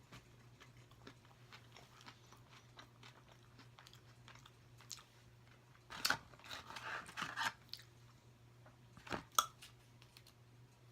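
Close-miked eating: a person chewing and biting into fast food, with soft wet mouth clicks and a louder stretch of crunching about six seconds in.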